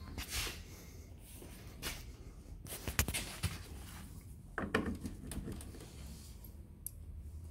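Handling noises from working on an opened flat-screen TV: a few scattered clicks and knocks, the sharpest about three seconds in, and a louder rustling thump a little later, over a low steady hum.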